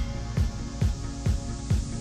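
Background electronic music with a steady kick-drum beat, a little over two beats a second, under held synth notes.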